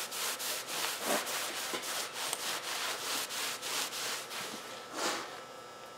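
Hand scrubbing back and forth on the wooden side of an antique library card catalog, in fast even strokes about five a second, lifting off caked-on dirt; the scrubbing stops near the end.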